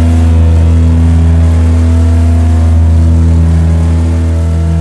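Truck engine droning steadily at highway speed, heard from the cab as a loud low hum with higher tones wavering above it. It cuts off abruptly near the end.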